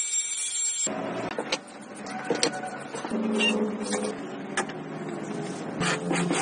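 Small electric power tool motor running steadily, with scattered sharp clicks and knocks of metal parts being handled. A high scrubbing hiss, like a wire-wheel brush on metal, cuts off about a second in.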